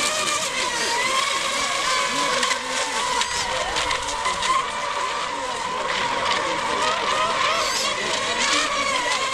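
Several electric RC racing boats of the NAVIGA ECO Expert class running flat out, a high motor-and-propeller whine from the pack whose pitch wavers up and down as the boats accelerate and turn around the buoys.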